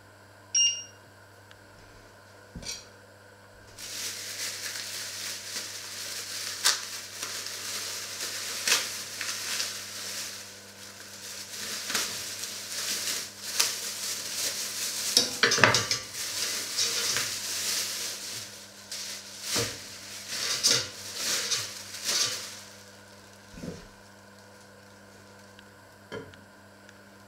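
A short electronic beep from a glass-top hob's touch controls about half a second in. Then a long spell of crinkling, rustling plastic bag with small clicks and snaps, with a few soft knocks near the end.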